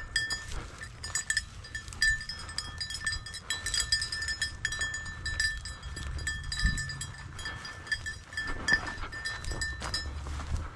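A small dog bell jingling continuously as the dog hunts through the grass: a steady ringing tone with a quick, uneven patter of little strikes. A low rustle of grass and wind runs underneath.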